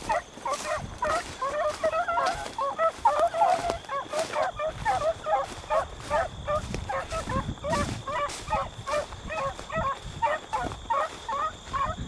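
A pack of beagles baying on a rabbit's track: several hounds giving short, repeated barking bays that overlap, two or three a second.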